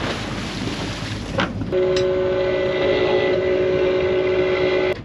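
A rushing noise, then a loud two-tone boat horn blast about three seconds long that cuts off suddenly.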